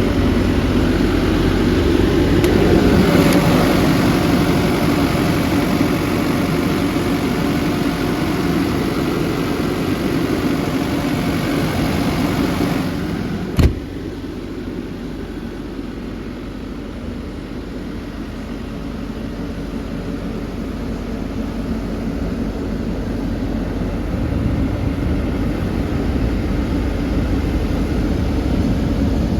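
Sany SY80U excavator's diesel engine running steadily, louder for the first half. A single sharp knock comes about halfway through, and after it the engine sound is quieter.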